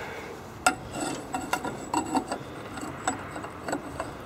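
Light metallic clinks and scraping from a threaded iron exhaust pipe being handled and fitted, with one sharper click just under a second in.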